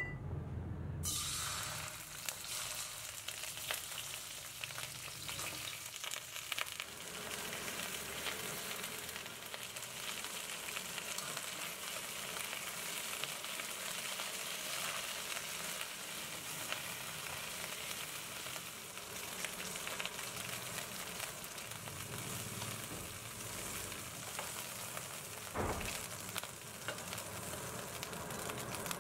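Chicken pieces searing in hot oil in a stainless steel wok: a steady sizzle that starts about a second in, with a few sharp knocks.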